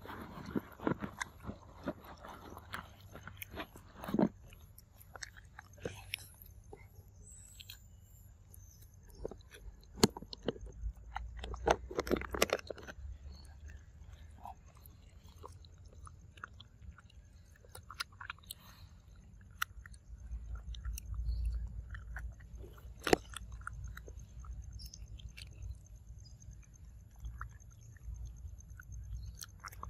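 A macaque biting into and chewing a green fruit close to the microphone: irregular sharp bites and chewing clicks, the loudest about ten, twelve and twenty-three seconds in.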